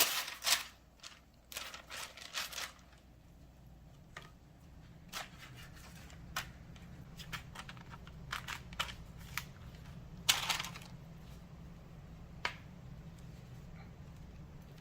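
Scattered soft rustles, taps and clicks of crescent roll dough being separated and laid out on a pan, with a brief louder crinkle about ten seconds in, over a faint steady low hum.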